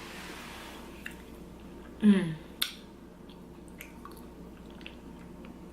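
Close-miked chewing and mouth sounds of a person eating vegan empanadas with rice and beans. There are small clicks throughout, a short voiced sound about two seconds in, and a sharper click just after it.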